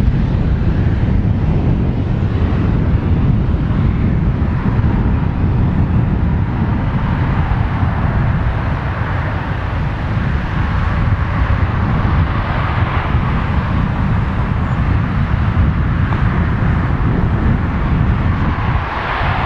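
Steam-hauled passenger train rolling away along the track, a steady rumble from the locomotive and carriages, with wind on the microphone.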